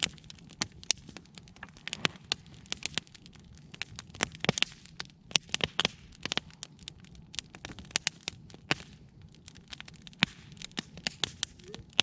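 Wood fire crackling, with irregular sharp snaps and pops several times a second.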